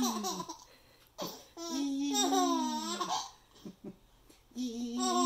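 Baby laughing in long, drawn-out peals, each held on one pitch and falling away at the end: one dies out about half a second in, a second runs from about a second in to three seconds, and a third begins near the end.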